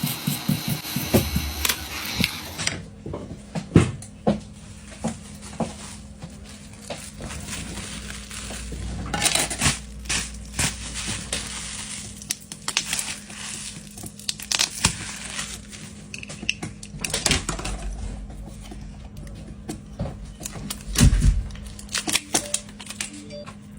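Scattered small clicks, taps and scrapes of tools and parts being handled during a phone repair, over a steady low hum, with a few louder knocks. Music cuts off about three seconds in.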